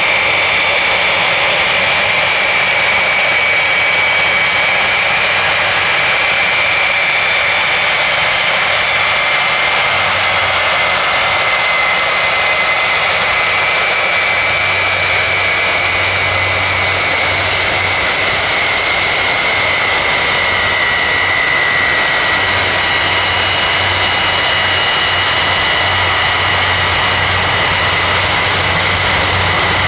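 Jet airliner engines running loud and steady, with a high whine that slowly sinks in pitch.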